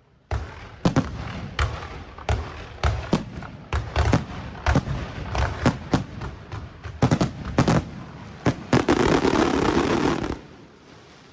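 Fireworks going off: an irregular series of about fifteen loud, echoing bangs, then nearly two seconds of dense crackling that cuts off abruptly.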